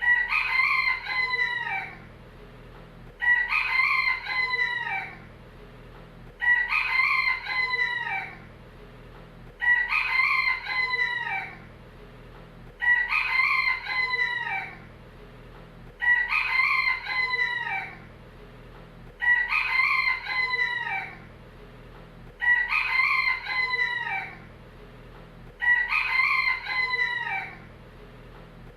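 Rooster crowing over and over, a crow of about two seconds coming every three seconds or so, each crow shaped the same.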